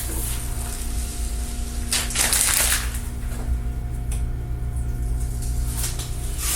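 Brief rustling and scraping of hands handling a taped wood board, over a steady low workshop hum.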